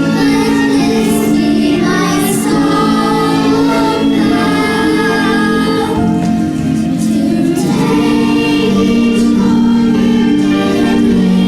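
A choir singing a song with musical backing.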